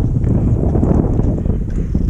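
Wind buffeting the microphone: a loud, low, unsteady rumble.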